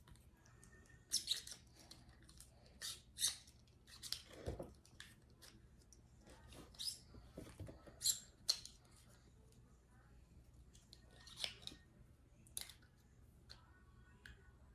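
Handling of a plastic Play-Doh tea-set kit: a dozen or so short, irregular rustles and clicks of plastic pieces and packaging being moved and opened.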